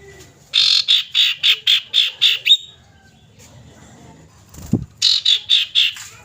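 Common iora calling: a rapid run of about eight sharp, repeated notes at roughly four a second, a pause, then a second run of about five notes near the end.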